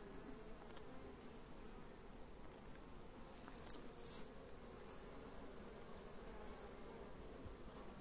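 Honeybees buzzing on a brood frame lifted out of an open hive: a faint, steady hum of the worker bees crowding the comb.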